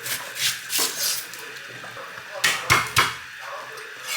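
Kitchen clatter: a series of sharp knocks and clinks of dishes and utensils, the loudest a quick run of three or four close together about two and a half to three seconds in.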